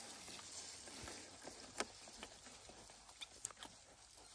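Faint rustling and scattered small clicks of white disposable gloves being handled and pulled onto the hands, the sharpest click about two seconds in and a few more near the end.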